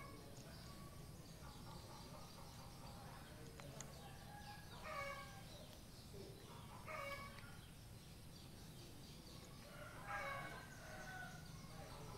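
Faint chickens calling in the background: a few short calls about five, seven and ten seconds in, over a low steady background noise.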